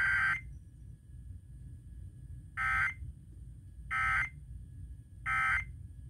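Emergency Alert System digital data tones played over a radio: a long warbling burst cuts off just after the start, then three short identical bursts follow about 1.3 seconds apart. This is the triple end-of-message code that closes a Required Weekly Test.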